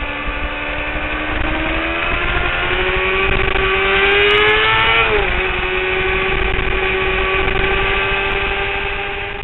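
Honda CBR600RR's inline-four engine running hard at high revs, its pitch climbing for about five seconds, dropping sharply, then holding steady, with low wind rumble over the bike.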